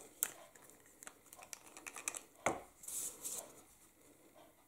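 Faint handling of paper and card on a craft mat: soft rustles and a few light taps as pieces are picked up and set down, the sharpest tap about halfway through.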